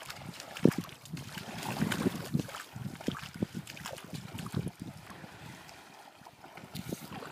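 Wind buffeting the microphone over gentle lapping and sloshing of shallow sea water at the beach edge, with scattered knocks, the sharpest a little over half a second in.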